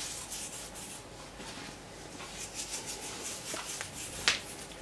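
Salt sprinkled by hand onto raw beef liver strips on a wooden board: a faint, light patter of grains, with one sharp click about four seconds in.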